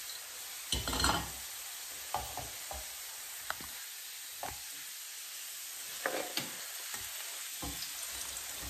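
Potatoes sizzling in a frying pan, a steady hiss, with a few knocks and scrapes of kitchenware against the pan; the loudest comes about a second in.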